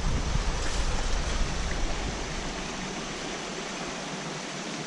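Steady rush of water flowing in a stream, with a low rumble underneath for about the first two seconds.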